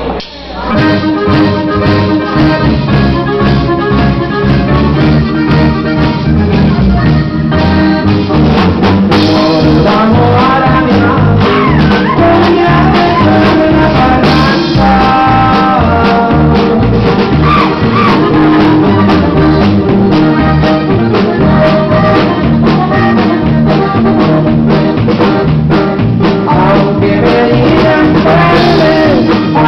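Norteño band playing live: accordion carrying the melody over drums, bass and guitar, with a steady beat.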